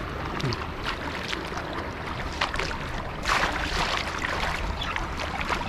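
Shallow floodwater flowing steadily, with rougher splashing starting about two and a half seconds in and again just after three seconds.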